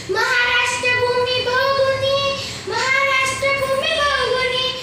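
A young girl singing a Marathi song solo, holding long sustained notes that each slide up into pitch at the start of a phrase.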